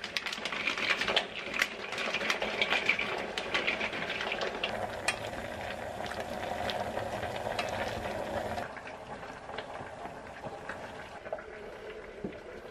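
Pieces of dry tube pasta clattering into a stainless steel pasta pot with a strainer insert, then stirred with a wooden spoon in rapidly boiling, bubbling water. There are many sharp clicks in the first few seconds, and the sound turns quieter about two-thirds of the way through.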